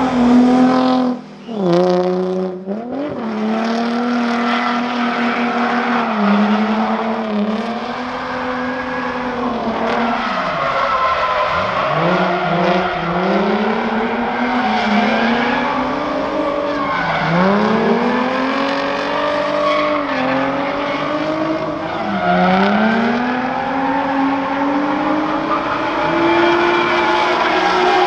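A drift car's engine revving hard, its pitch climbing and falling again and again through the slides, over a steady hiss of tyre squeal from the sliding rear tyres.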